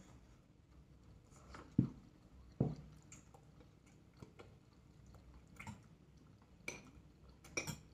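People eating noodles: quiet chewing, with a handful of sharp knocks and clinks of chopsticks and a spoon against ceramic bowls.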